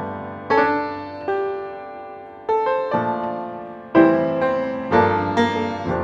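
Background piano music: slow single notes and chords, each struck and left to ring out and fade.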